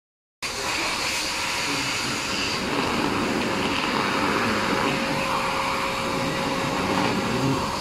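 Electric air blower running steadily, filling a PVC inflatable horse with air: an even rushing noise with a faint steady hum.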